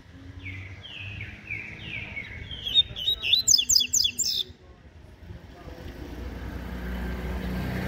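Double-collared seedeater (coleiro) singing: a series of down-slurred whistles, then a loud, fast, high twittering phrase that stops abruptly about four and a half seconds in. A passing vehicle's noise rises near the end.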